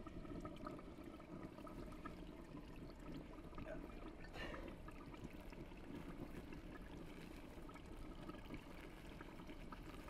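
Faint, steady rushing of a gas flame burning under a metal kettle on a small ground burner.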